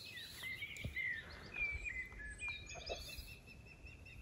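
Osprey calling: a fast, continuous run of short, high whistled chirps, faint over a quiet background.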